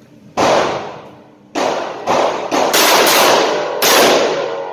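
Rock Island Armory AL3.1 .357 Magnum snub-nosed revolver fired rapidly one-handed: about six sharp shots, the first alone and the rest in quick succession, each ringing out in the echo of an indoor range.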